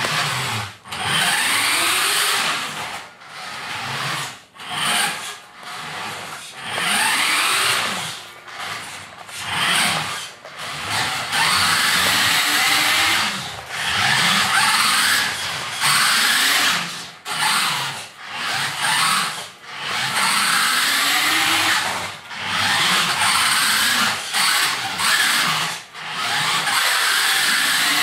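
A vintage Taiyo/Tyco 4WD Hopper toy RC buggy's electric motor and gears whining in repeated bursts as the throttle is worked on and off. The pitch rises and falls with speed, and the tyres scrub on the hard wooden floor.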